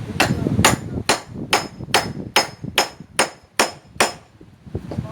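Hammering: ten even, quick blows, about two and a half a second, each with a short ringing tone, stopping about a second before the end.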